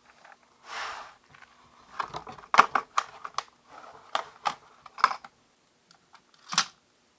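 A brief rustle about a second in, then a run of sharp, irregular clicks and taps like hard plastic being handled, and one last click near the end.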